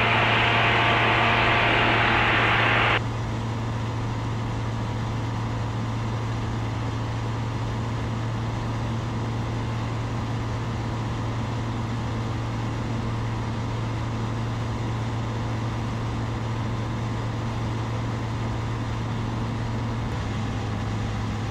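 The 100-hp Rotax 912ULS four-cylinder engine and propeller of a Zenith STOL CH 701 running steadily in flight, with a constant low drone and rushing air. The first three seconds are heard from inside the cabin, louder and hissier. Then the sound suddenly drops in level and loses much of its hiss as it is heard from a camera mounted outside on the wing.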